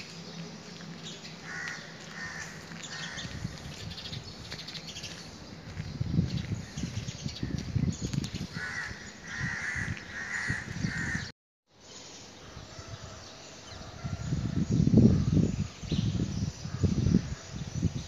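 Crows cawing: a few calls early on and a run of about four in a row before a brief cut-out. Under them is low, gusty wind buffeting on the microphone, which is the loudest sound in the second half.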